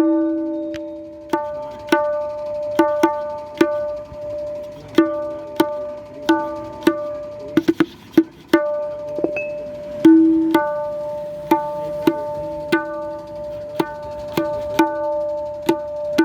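Handmade tabla being played in slow single strokes, the drum head ringing at a steady pitch between strokes, with a short quick flurry of strokes about halfway through.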